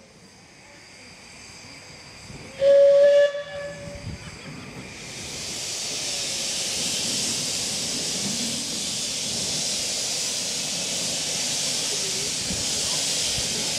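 A miniature 15-inch gauge steam locomotive gives one short whistle toot about three seconds in. Then comes a steady, loud hiss of steam blowing from the cylinder drain cocks at rail level.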